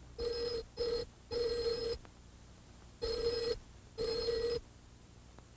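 Electromagnetic telephone ringer striking its two metal gongs, ringing in five short bursts: three close together, a pause, then two more.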